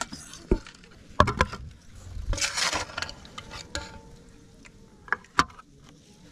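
A metal ladle stirring and clinking in a metal cooking pot of catfish stew, with several sharp knocks scattered through and a short rush of stirring about two and a half seconds in.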